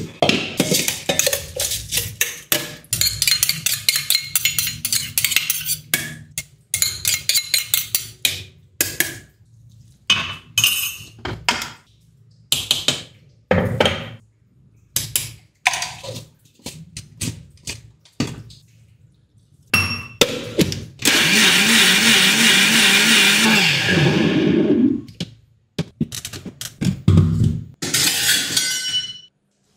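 A run of close-up kitchen sounds: a stainless-steel mixer-grinder jar and utensils clink and knock many times. About two-thirds of the way through, an electric mixer grinder runs loudly for about four seconds, grinding rice batter for appam, and more clatter follows.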